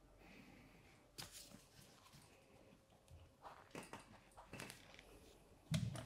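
Faint knocks and scrapes of a motorcycle tire changer's parts and tools being handled and positioned on the wheel, with a louder low thump near the end.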